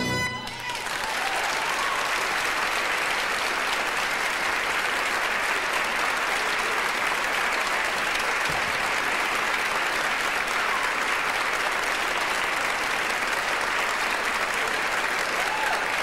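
Audience applauding steadily. The band's last chord breaks off right at the start.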